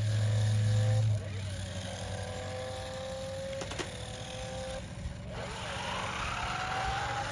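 Electric motors of toy remote-control cars whining, the pitch gliding up and down as the cars speed up and slow. A steady low hum cuts off about a second in, and there is a single click near the middle.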